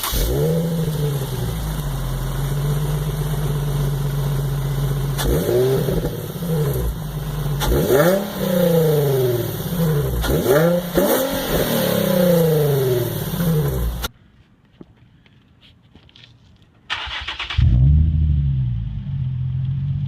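Nissan 350Z V6 on a Magnaflow 2.5-inch catback dual-muffler Y-pipe exhaust, starting with a flare and settling to a deep idle. It is then blipped through about four short revs. About fourteen seconds in the engine cuts out, and some three seconds later it starts again with another flare and idles.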